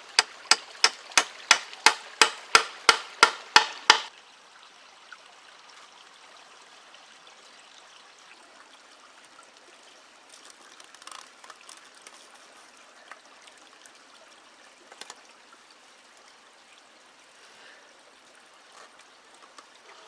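A hammer driving nails into wood, with rapid even strikes about three a second that stop abruptly about four seconds in. After that there is only a faint steady rush with a few light knocks.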